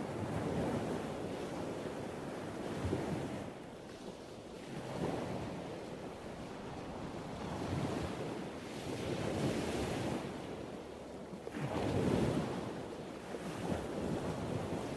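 Ocean surf: waves breaking and washing in, swelling and ebbing every few seconds, with a loud surge about twelve seconds in.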